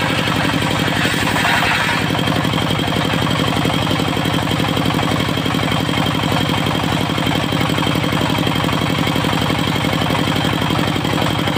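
Diesel engine of a mobile circular sawmill running steadily with an even, fast pulse. A higher hiss fades out about two seconds in.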